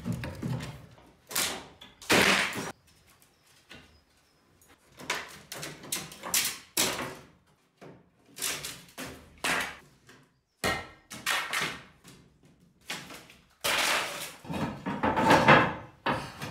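Wooden ceiling cladding boards being pried loose with a crowbar: a string of irregular knocks, scrapes and cracks as the boards come away, the loudest near the end.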